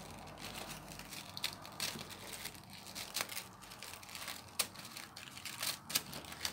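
Tissue paper crinkling and rustling faintly while small scissors snip into it, with a few sharp clicks scattered through.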